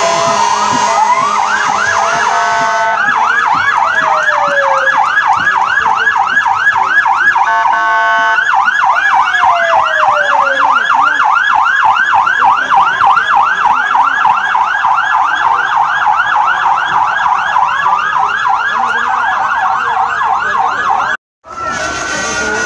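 Electronic emergency-vehicle sirens, more than one at once, mostly in a fast yelp with a slower wail sliding underneath and short steady horn tones near the start and about eight seconds in. The sound cuts out abruptly for a moment near the end, then a wail resumes.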